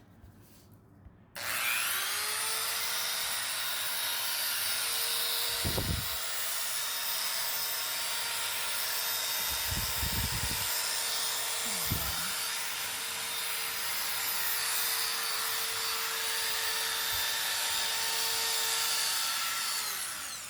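Electric power sander starting up, running steadily while sanding wood, then winding down near the end. The motor's hum rises as it spins up and falls as it stops.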